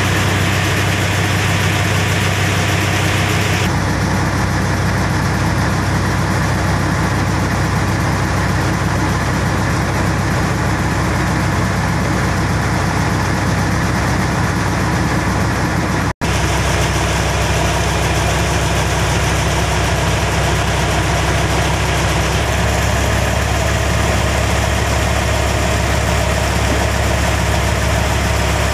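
River taxi boat's inboard diesel engine running steadily under way, a loud, even, deep drone. The sound breaks off for an instant about two-thirds of the way through, then carries on unchanged.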